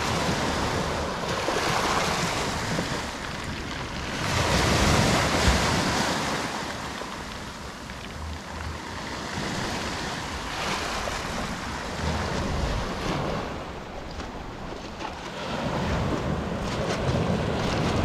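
Sea waves breaking and washing up over a pebble beach, swelling loudest about four to six seconds in and ebbing again, with wind on the microphone.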